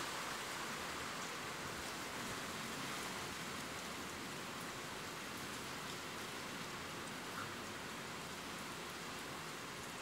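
Steady rain falling: a dense, even hiss with faint scattered drop ticks.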